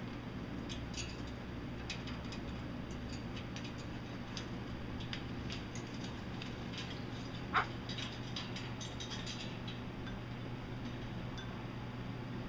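Small clicks and taps of animals moving on a wire pet cage, over a steady low hum, with one short squeak a little past halfway.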